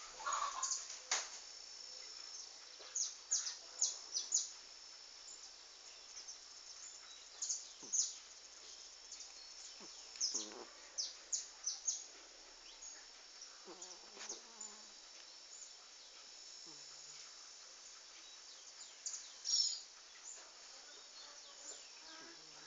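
Small birds chirping in short, high, quick-falling calls that come in clusters every few seconds, over a faint steady high-pitched insect-like whine.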